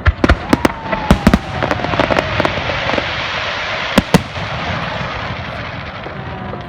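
Fireworks and firecrackers going off: a quick run of sharp bangs in the first second and a half, then dense crackling, with two more bangs about four seconds in. A thin falling whistle runs under the first bangs, and the crackle fades away near the end.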